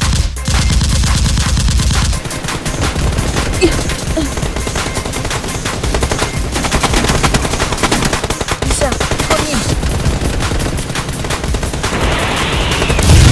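Rapid, continuous automatic gunfire, shot after shot in quick succession.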